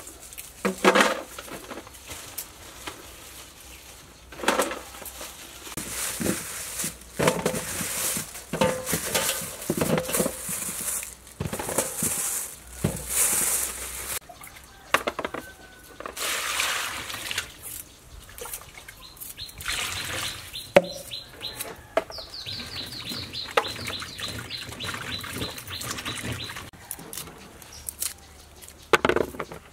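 Plastic bags rustling and produce being handled, with knocks and clatter as limes and other ingredients are set into a steel bowl and a plastic basket on a table. Past the middle a bird gives a rapid high chirping trill for several seconds.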